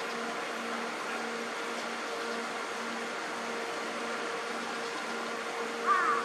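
Steady machine-like hum with a low tone pulsing on and off about twice a second. Near the end come a couple of short, louder warbling sounds.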